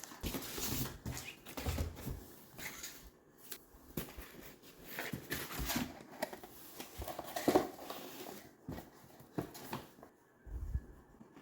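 Box packaging rustling with light clicks and knocks as items are handled and taken out, irregular throughout, with a low thump near the end.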